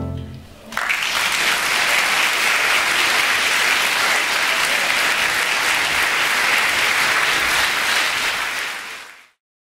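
The last chord of a big band dies away, then a theatre audience starts applauding about a second in. The applause holds steady and fades out near the end.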